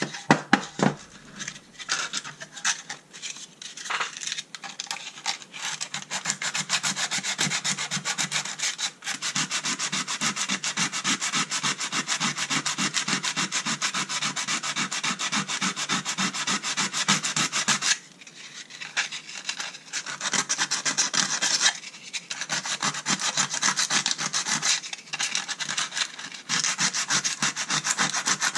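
Hand sanding on the sheet-steel insert of an old tin tool box: quick back-and-forth scrubbing strokes of abrasive on metal, removing old paint and rust, with a few brief pauses.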